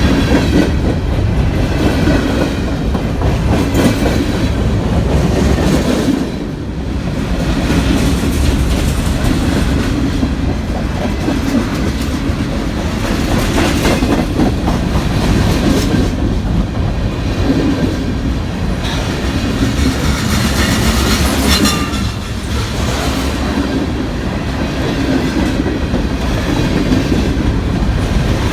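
Train cars rolling past, wheels clacking steadily over the rail joints, with a faint high wheel squeal for a couple of seconds about twenty seconds in.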